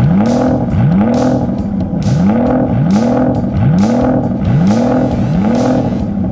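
A racing-car engine revving sound effect, a vroom rising and falling in pitch, repeated over and over roughly once a second, each time with a whoosh.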